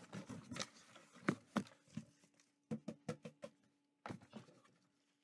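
Close handling noise: rustling with irregular clicks and knocks, coming in three bursts, the busiest in the first two seconds and a quick run of clicks around the middle, over a faint steady hum.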